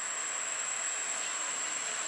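Steady high-pitched hiss with a thin, constant whine above it.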